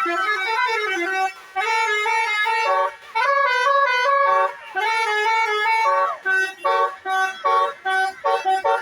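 A bus's 'telolet' multi-tone musical horn playing a tune of stepped chord-like notes, then a string of quicker short toots in the last few seconds.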